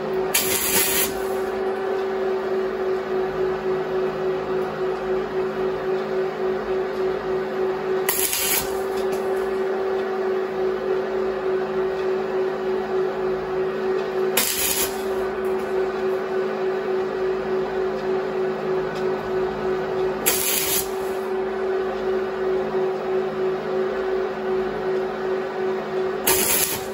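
MIG welder arc crackling and sizzling steadily over the machine's hum, as weld is built up on the head of a rusted, seized blade screw to give something to grip. A short hiss breaks in about every six seconds.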